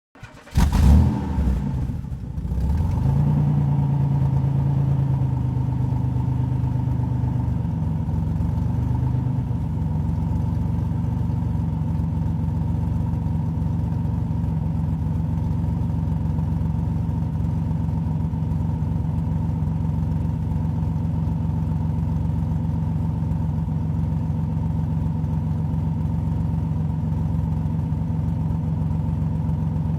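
Car engine starting up about half a second in, then settling into a steady idle.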